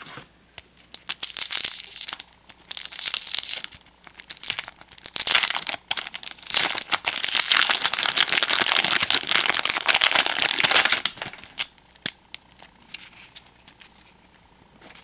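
Wrapper of a 1991 Topps Stadium Club baseball card pack being crinkled and torn open by hand, in several rustling spells with the longest near the middle. A few light clicks of the cards being handled follow near the end.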